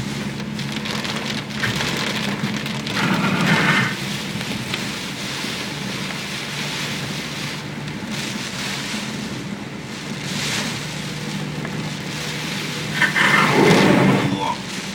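Heavy typhoon rain pouring steadily over a low, steady hum, with two louder surges, about three seconds in and near the end.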